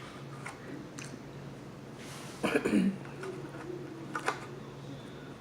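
Quiet mukbang eating sounds while a slice of cake is eaten: a few light clicks, and about two and a half seconds in a short vocal sound from the eater, over a faint steady low hum.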